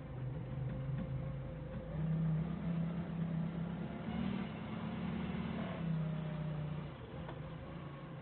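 Forklift engine running, speeding up about two seconds in and dropping back to a lower, steady run near the end.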